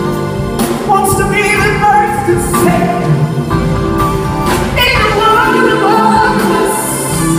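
A live band playing, with a woman singing lead and backing vocalists joining in.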